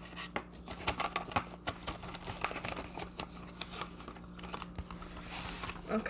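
Plastic cash envelopes and paper bills crinkling and rustling as they are handled in a ring binder, with many irregular small clicks and taps.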